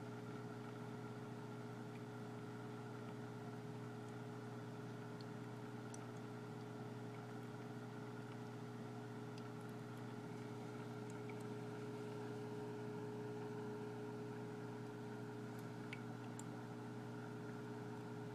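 Steady low hum of a small electric motor running evenly, with a few faint ticks.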